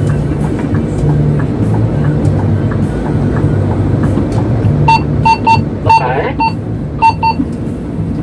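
Vehicle engine running with a steady low drone while driving. About five seconds in comes a quick, uneven run of short high electronic beeps, around ten of them in under three seconds.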